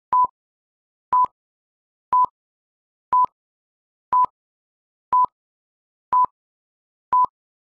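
Film-leader countdown beeps: eight short beeps of the same pitch, one each second, with dead silence between them.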